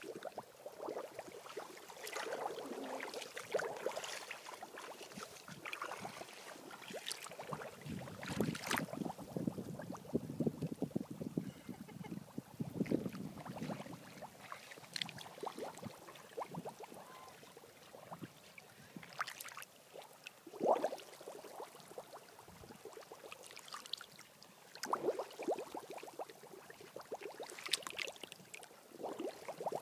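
Waterlogged wet sand squelching and gurgling under a bare foot that presses and works into it. It comes in uneven bursts with small crackling clicks.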